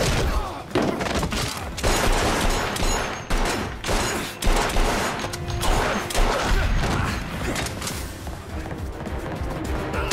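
Fight-scene sound effects: a run of hard punches and body impacts, one every second or so, over dramatic background music.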